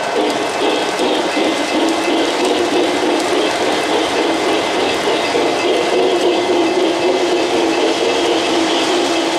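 O-gauge model trains running on three-rail track: a steady rolling noise of metal wheels and cars, with a wavering hum underneath.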